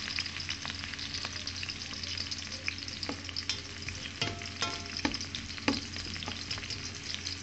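Chopped onions frying in hot oil in a wok: a steady sizzle with scattered sharp crackles.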